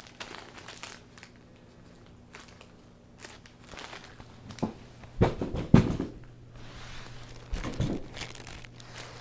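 Crinkling and rustling of a fabric cat tunnel as a kitten moves about inside it, in irregular bursts. The loudest rustles and bumps come about five to six seconds in and again near eight seconds.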